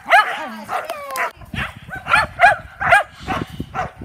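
Dog barking repeatedly in short, high barks, about two to three a second, with dull low thumping underneath from about a second and a half in.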